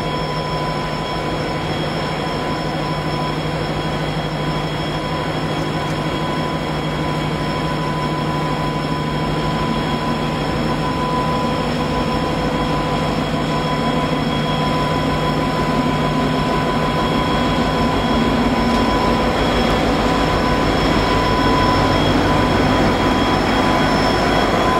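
Diesel-electric locomotive moving slowly, hauling track-maintenance machines: a steady engine hum with a high, even whine over it, growing gradually louder as it draws near.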